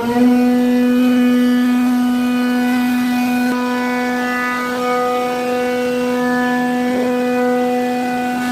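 Syfing CNC router spindle running at a steady speed, giving a constant high-pitched whine while carving wood.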